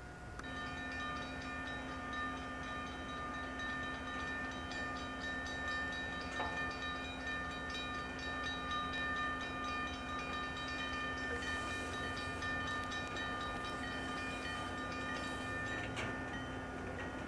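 Railroad grade-crossing bell ringing in rapid, even strokes with the gates down, over the low rumble of an approaching Southern Pacific diesel locomotive creeping toward the crossing.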